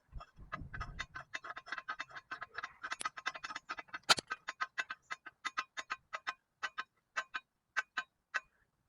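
A rapid series of sharp mechanical clicks, about five a second, thinning out and slowing over the last few seconds, with one louder click a little after four seconds in.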